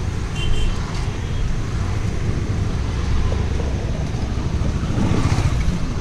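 Steady low rumble of road traffic, swelling a little about five seconds in.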